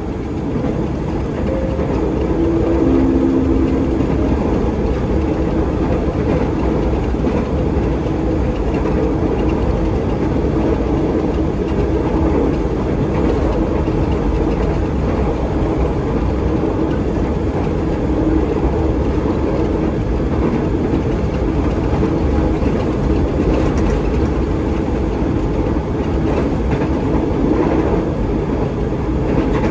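Running noise inside a KRL electric commuter train moving at speed: a steady rumble of the wheels on the track, with a low steady hum running under it.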